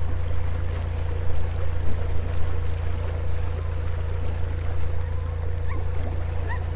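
Narrowboat engine running steadily at low cruising revs as a low drone, with water moving along the hull. A few short rising chirps come near the end.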